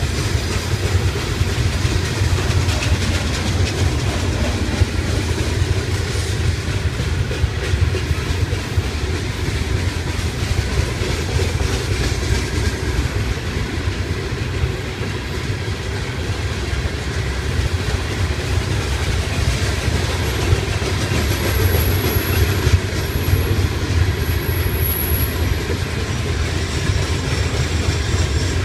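Loaded freight cars of a Florida East Coast rock train rolling past: a steady low rumble of steel wheels on the rails, with faint clicking throughout.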